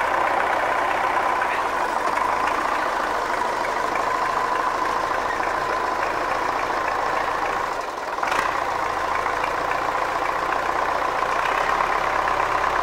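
A tractor engine idling steadily, with a single sharp click about eight seconds in.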